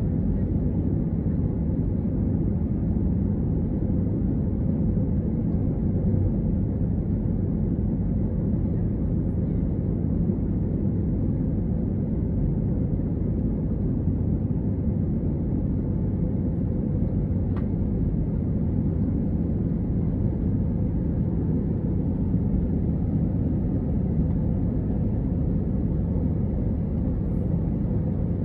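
Steady low drone of an Airbus A321 in flight, heard from inside the passenger cabin: engine and airflow noise, unchanging throughout.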